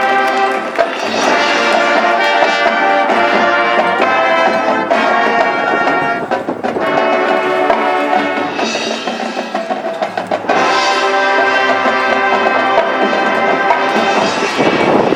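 High school marching band playing loud, full brass chords over drums and percussion.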